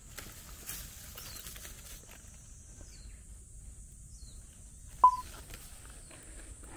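Woodland ambience on a forest trail: rustling steps in the undergrowth at first, a few faint short falling bird chirps, and a steady high hiss in the background. About five seconds in there is one sharp click with a brief clear tone, the loudest sound.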